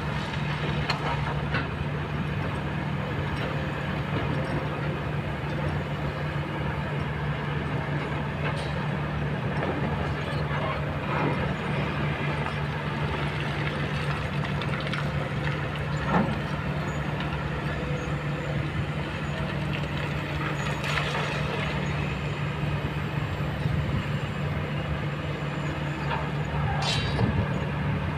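Diesel engines of Kobelco hydraulic excavators running steadily with a low hum, with scattered knocks and clanks as the steel buckets work and drop stone, the sharpest about sixteen seconds in.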